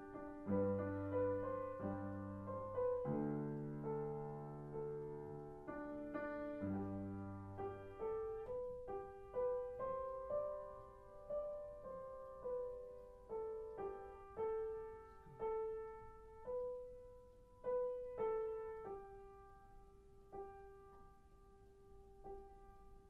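Solo piano music, slow and gentle: low chords for the first several seconds, then a melody of single notes struck about once a second, fading out near the end.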